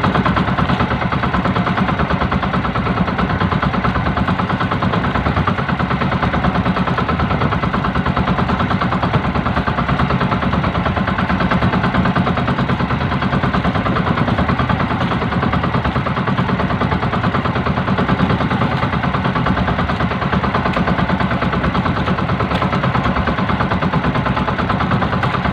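Small engine of an outrigger fishing boat running steadily under way, a loud, fast, even putter.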